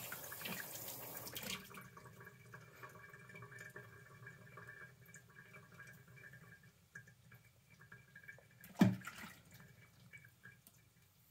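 Bathroom tap running water into the sink, shut off about a second and a half in. After it, faint small sounds and one sharp knock near the end.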